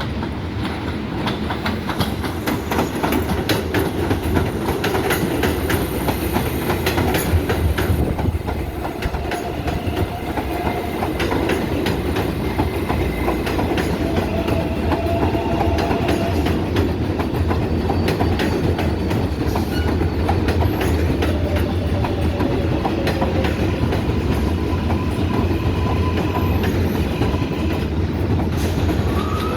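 R188 subway train running on the elevated track: a steady rumble with rapid clicks of the wheels over rail joints, and now and then a faint thin whine.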